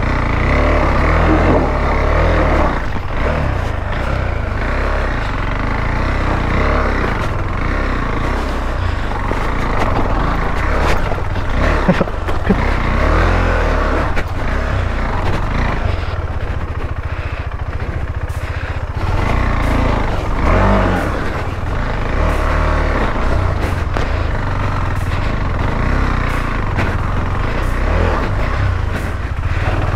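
KTM 390 Adventure's single-cylinder engine running through an off-road climb, its note rising and falling with the throttle.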